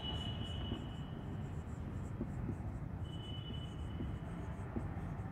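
Marker pen squeaking and scratching across a whiteboard as a word is written, with thin high squeaks in the first second and again about three seconds in.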